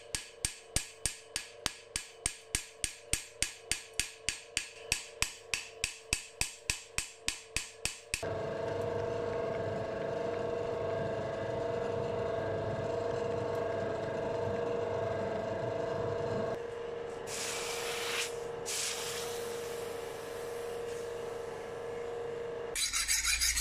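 Hand hammer striking a knife blade at a pale red heat on an anvil in quick, even blows, about four or five a second: low-temperature hammering to refine the steel's grain before quenching. After about eight seconds the blows stop and a steady hum with hiss carries on.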